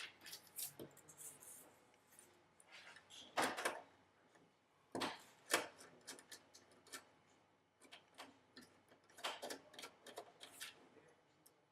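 Faint, irregular small clicks, taps and rubbing of hands and a tool working a wire into a screw terminal block, with a few sharper clicks scattered through.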